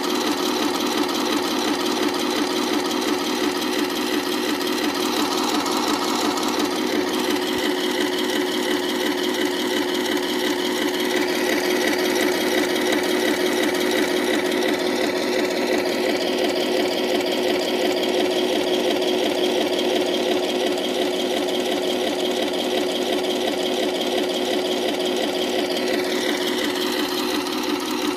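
Remote-control Tiger 131 tank model's simulated engine sound playing from its onboard speaker, a steady, rapid rhythmic idle that runs on without change.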